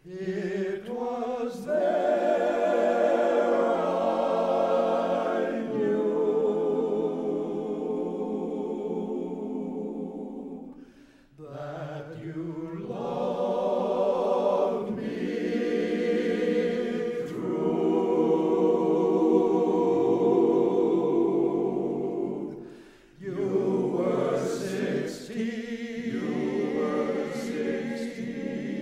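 Male a cappella vocal group singing in harmony, with sustained notes and vibrato, in long phrases broken by short breaths about eleven and twenty-three seconds in.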